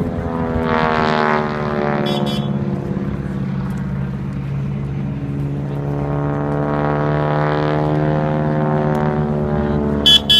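Boeing Stearman biplane's radial engine and propeller droning as it flies past; the pitch drops in the first couple of seconds as it moves away, then climbs again as it comes back toward the end. A brief sharp high blip sounds near the end.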